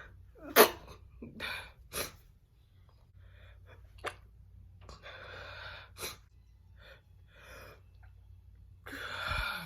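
A woman stifling sneezes: a sharp held-back sneeze about half a second in, the loudest sound, then several smaller stifled bursts between catching, gasping breaths, with a longer gasping inhale near the end.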